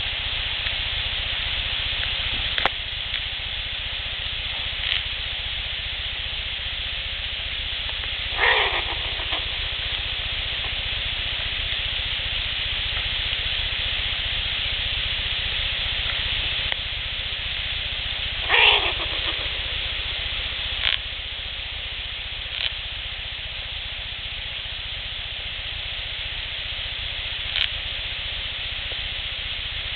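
Outdoor field recording with a steady hiss, broken twice, about ten seconds apart, by a short animal call that drops sharply in pitch from high to low, plus a few faint ticks.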